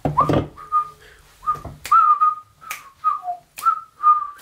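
A person whistling a tune in short notes that slide up at the start, with sharp finger snaps about once a second keeping time.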